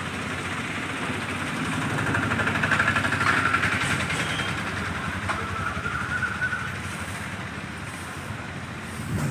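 Road traffic: a motor vehicle passes close by, getting louder about two seconds in and fading after about four, over a steady traffic hum.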